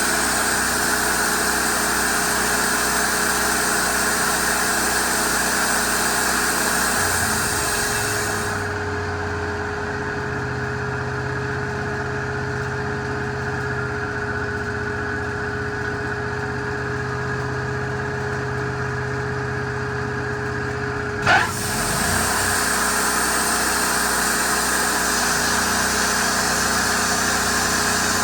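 Wood-Mizer LT40 band sawmill running, a steady machine sound with a constant whine. About eight seconds in the note deepens and the hiss drops away. About 21 seconds in, a quick falling sweep and a short loud blip bring the first sound back.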